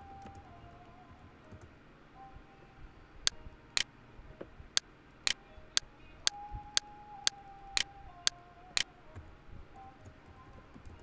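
A series of about a dozen sharp computer keyboard key clicks, roughly two a second, starting about three seconds in and stopping near nine seconds.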